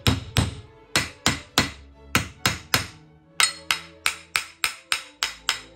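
Repeated sharp metal taps, about three a second with two short pauses, as a rusted part pressed onto a Chevy distributor's hollow shaft is tapped to knock it loose.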